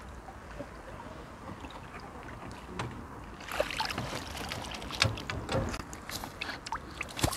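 Hooked crucian carp thrashing and splashing at the water's surface as it is drawn in. A burst of splashes begins about halfway through, with a sharp knock near the end.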